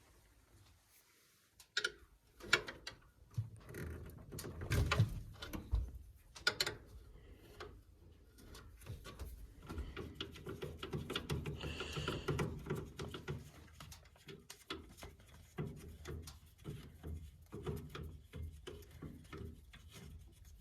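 Irregular knocks, clicks and clatter, beginning about two seconds in and going on unevenly.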